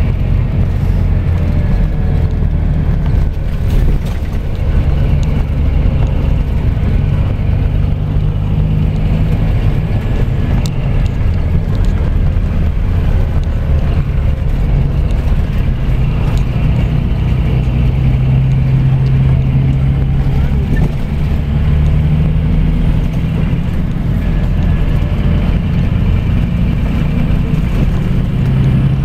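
Scania coach's diesel engine and road noise heard from a seat near the rear of the cabin: a steady low drone whose engine note rises and falls a few times as the coach changes speed.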